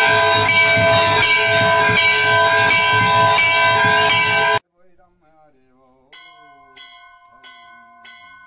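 Many brass temple bells clanging together loudly for the aarti, with strokes coming about every two-thirds of a second. The sound cuts off suddenly a little past halfway. Near the end a single bell is struck four times, about two-thirds of a second apart, each stroke ringing on.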